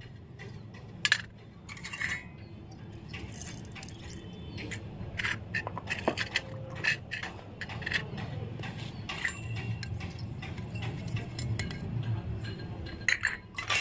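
Small stainless-steel miniature kitchen toys clinking and tapping as they are handled and set down on a concrete floor: a string of light, separate metallic clicks about a second apart, with a couple close together near the end.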